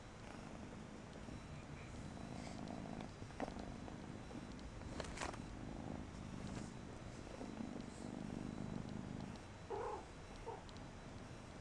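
Cat purring in low, uneven patches, with a few sharp clicks.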